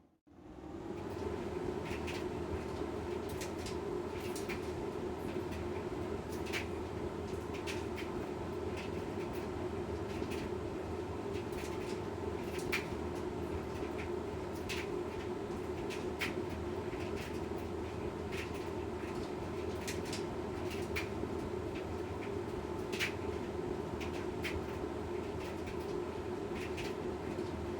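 LG washing machine running partway through a quick-wash cycle: a steady motor and drum hum with irregular light clicks and knocks from inside the drum.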